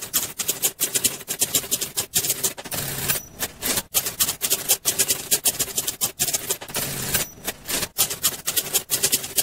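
Typewriter typing: a rapid, uneven run of key strokes with a few short pauses.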